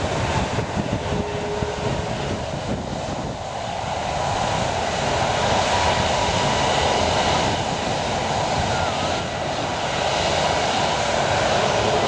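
Twin jet engines of an Airbus A330 running at low thrust as it taxis slowly: a steady rushing noise with a faint thin whine.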